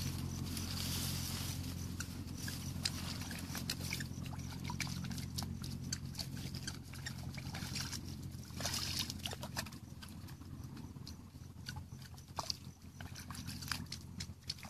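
Hands groping and splashing in shallow muddy paddy water: a run of small sloshes, trickles and drips. A steady low hum lies under it and fades out about eight seconds in.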